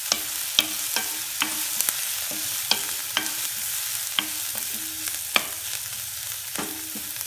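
Chopped onions and green chillies sizzling in a nonstick kadai as a wooden spatula stirs them, clicking against the pan about twice a second. The onions are being sautéed until soft.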